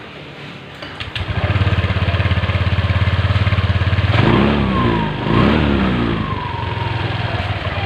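Honda Click scooter engine starting about a second in and idling. It is revved up and down twice near the middle, then settles back to a steady idle.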